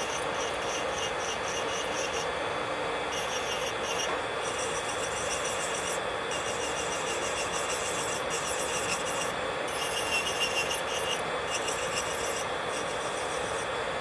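Electric nail drill (e-file) running with a steady whine, its bit grinding on a fingernail in rapid gritty strokes that stop and start again several times.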